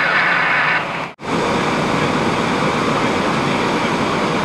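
Water hissing from a fire hose nozzle for about a second. Then, after a brief dropout, a fire engine runs steadily with its hose lines connected, pumping water.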